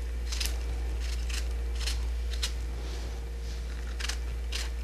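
Knife slicing fresh strawberries held in the hand: a series of short, crisp cuts about twice a second, over a steady low hum.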